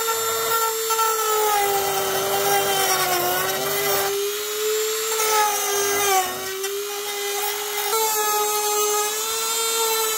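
Rotary tool with a cut-off disc whining steadily as it cuts through 3D-printed plastic, its pitch wavering and dipping slightly now and then as the disc bites.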